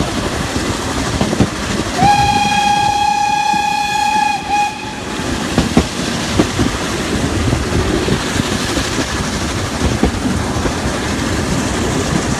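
Narrow-gauge steam locomotive's whistle sounding one steady blast of about three seconds, starting about two seconds in. Under it is the running noise of the train, with wheels clicking over rail joints.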